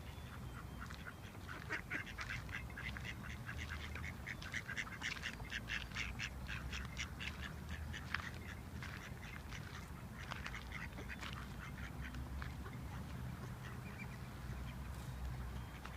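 Ducks quacking in a rapid, dense run of short calls that thins out in the second half, over a steady low background rumble.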